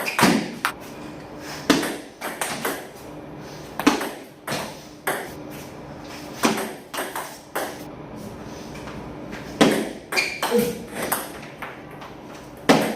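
Sharp clicks of a table tennis ball being struck by rackets and bouncing on the table during practice play, coming in uneven runs of about one to three a second. A brief squeak sounds about ten seconds in.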